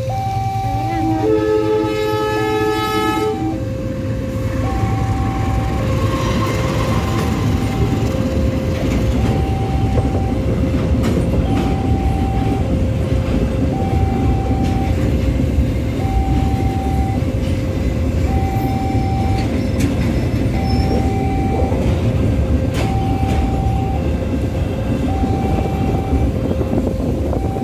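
A pulp freight train's wagons running fast over a level crossing: a steady rumble and rattle of wheels on rails with occasional clacks. The crossing's warning alarm alternates between two tones, each about half a second, throughout. About a second in, the locomotive's horn sounds for roughly two seconds.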